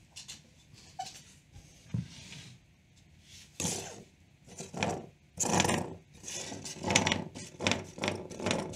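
Hands handling a small plastic Wi-Fi smart plug on a wooden desk: a few light clicks, then from about halfway a run of irregular rubbing and scraping noises.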